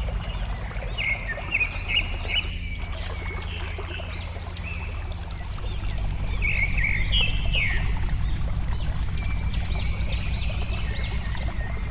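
Running water babbling steadily, with small birds chirping over it in quick series of short, high notes that rise and fall, busiest about a second in and again after about six seconds.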